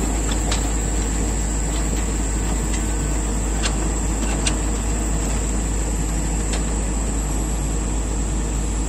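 Diesel engine of a Komatsu long-arm excavator running steadily, with a few short clicks over it.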